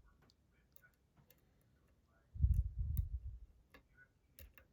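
Lock pick and tension tool working the pins of a challenge lock: scattered small sharp clicks, with a louder low rumble of handling noise about two and a half seconds in.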